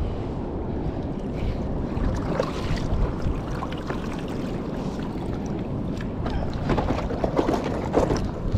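Sea water sloshing and splashing close to the microphone over a steady rush of wind noise. There are clusters of splashes about two to three seconds in and again near the end.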